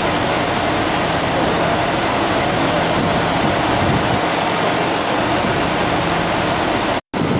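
Fire engine's pump and engine running at a steady drone, with a broad hiss of water spraying from a hose. The sound cuts out for a moment near the end.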